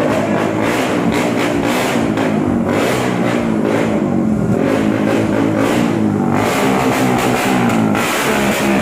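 Loud rock music with guitar and drums playing steadily.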